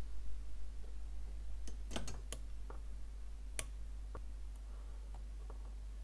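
A scattering of light, sharp clicks from metal tweezers and a soldering-iron tip against the flashlight's LED board as a wire is desoldered and pulled free. Most come in a cluster about two seconds in, with single clicks after, over a steady low hum.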